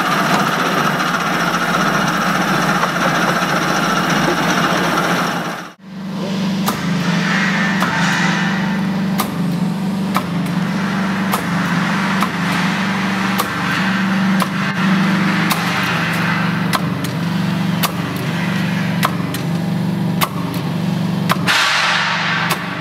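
Demurger metal-cutting band saw running: a steady machine hum with a scatter of light ticks. It drops out for an instant about six seconds in, then carries on.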